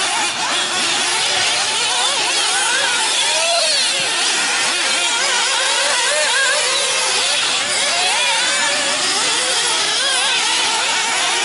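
Several 1/8-scale nitro RC buggies' small two-stroke glow engines running at once. Their high-pitched whine rises and falls constantly as the throttles open and close.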